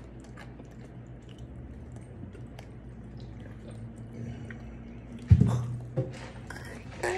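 Faint crunching and chewing of a Takis rolled tortilla chip, small crackling clicks over a low hum. A loud thump comes about five seconds in, with a smaller knock just under a second later.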